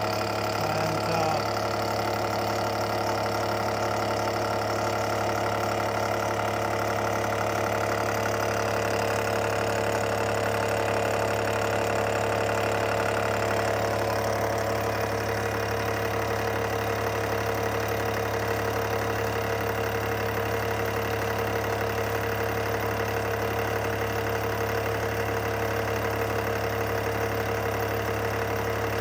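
Milling machine running steadily at about 500 rpm while a face mill takes a 40-thou cut across the side of a metal part: a constant machine hum that holds level throughout.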